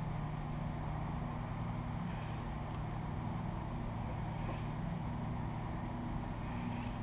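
Ferry's engines running with a steady low hum, under a faint even hiss.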